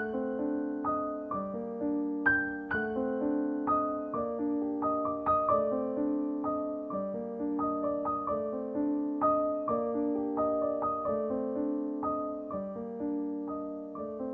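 Background piano music: a gentle melody over chords, each note struck and fading, at a steady unhurried pace.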